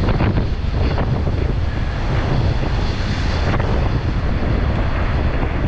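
Gale-force wind buffeting the microphone in a heavy low rumble, over waves crashing and water washing over a seawall.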